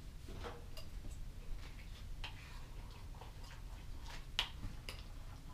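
A utensil stirring flour and water in a bowl, making irregular light clicks and taps against the bowl, with one sharper tap about four seconds in.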